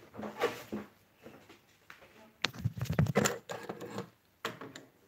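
Handling noise from objects being picked up and moved close to the phone's microphone: irregular rustling, clicks and light knocks, busiest in a cluster about halfway through.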